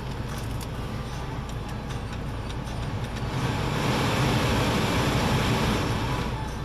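Cabin heater blower fan of a Peugeot 207, a steady rush of air that swells louder about three seconds in as the fan speed is turned up, then drops back near the end. A low steady hum runs underneath.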